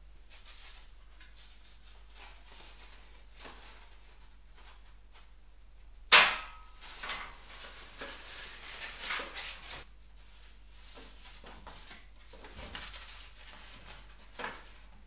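Stiff cardboard template pieces being handled and pressed against a welded steel-rod tank buck on a steel table: rustling, flexing and scraping. There is one sharp knock about six seconds in, the loudest sound, and a smaller knock near the end.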